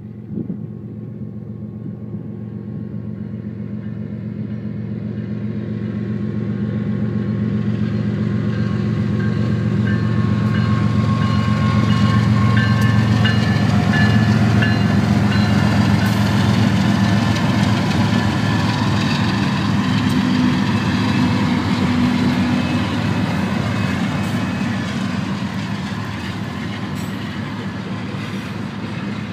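Several BNSF diesel-electric locomotives pulling a freight train past at close range: the low, steady engine hum grows louder as the locomotives approach, peaks as they go by, and eases slightly as the rail cars roll past.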